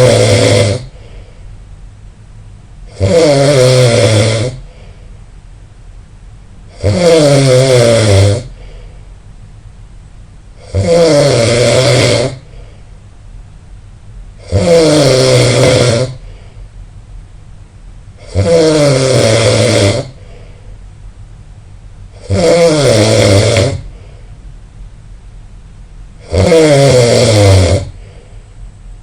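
A person snoring loudly, one long snore roughly every four seconds, each snore falling in pitch as it goes, with quiet breathing gaps between.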